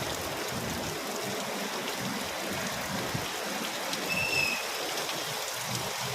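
Heavy typhoon rain falling and splashing steadily, with one brief high squeak about four seconds in.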